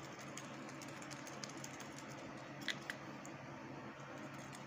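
Folded paper slips shaken in a plastic cup, rattling against its sides in a run of small irregular clicks, with a couple of louder taps a little past the middle.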